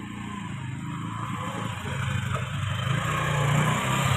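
A motorcycle engine running, growing louder toward the end.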